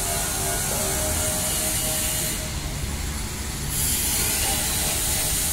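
Steady background hiss and rumble of an industrial site, with a few faint steady hums; the high hiss drops away briefly in the middle and then returns.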